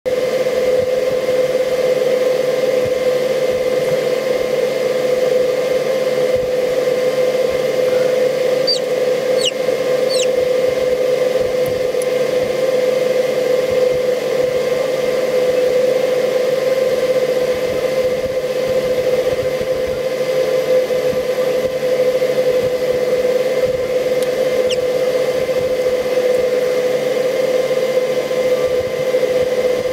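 Incubator fan motor humming steadily with an even drone, with a few brief faint high chirps about nine to ten seconds in.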